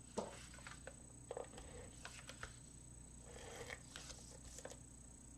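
Faint handling of cardstock, with scattered light taps and rustles, and a handheld tape runner rasping briefly along a paper panel as it lays down adhesive, a little past the middle.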